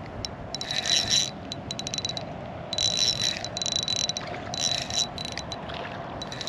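Spinning reel's drag clicking out in about five short bursts as a hooked fish pulls line, over a steady hum.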